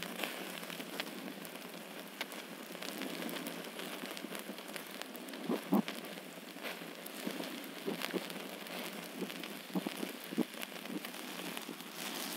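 Open wood fire crackling and sizzling under whole fish grilling on a bamboo spit: a steady hiss full of small ticks, with a couple of louder pops about halfway through.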